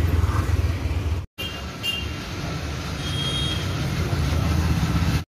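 Street traffic noise: a steady low engine rumble from road vehicles, with a few brief high beeps about two and three seconds in. The sound cuts out completely for an instant a little after one second.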